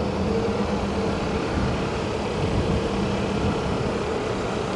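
A steady engine drone with an even low hum.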